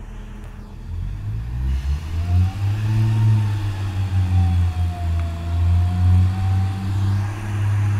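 Class 142 Pacer diesel multiple unit pulling away from a station: its underfloor diesel engines rev up about a second in and run hard under load, with a whine that rises and then wavers.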